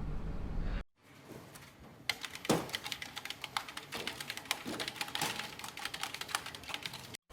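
Rapid, irregular clicking of keys being typed on a computer keyboard, starting about a second in and cutting off just before the end.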